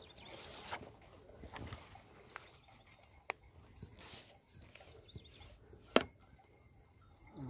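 Grass and dry stems rustling and being brushed aside by someone moving through streamside vegetation, with scattered handling noises and a few sharp clicks, the loudest about six seconds in.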